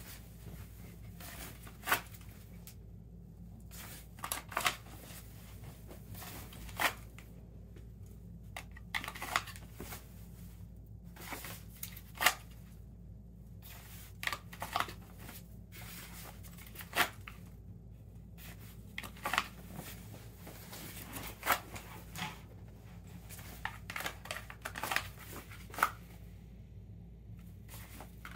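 Repeated draws and reholsters of a pistol with a mounted weapon light from a kydex light-bearing appendix holster. Sharp plastic clicks and snaps come every second or two as the light seats in and pulls out of the holster, with shirt fabric rustling between them.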